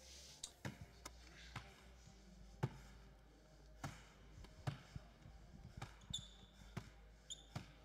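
Basketball bounced on a hardwood court floor: faint, irregular single bounces, about one a second. Near the end there are two short high sneaker squeaks.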